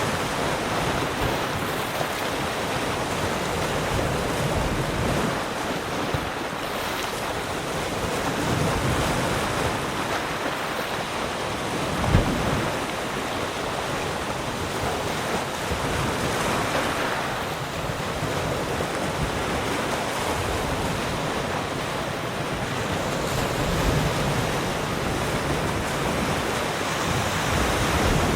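Calm ocean waves lapping around rocks: a steady wash of surf that swells and eases, with one brief thump about twelve seconds in.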